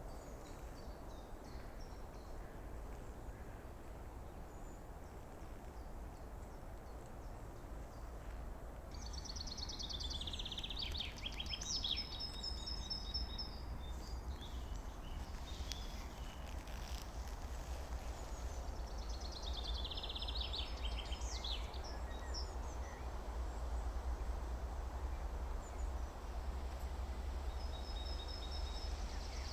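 A small songbird singing three short phrases, each a fast trill followed by a few clear high notes, about ten seconds apart, over a steady low rumble.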